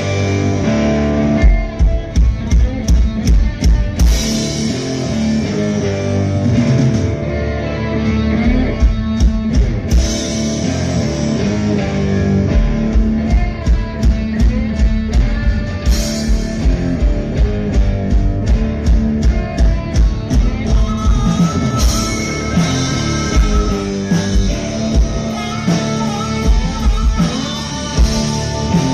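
Live blues-rock band playing loud through a festival PA: electric guitars, bass and a drum kit keeping a steady beat, with keyboard. In the second half a harmonica plays held notes over the band.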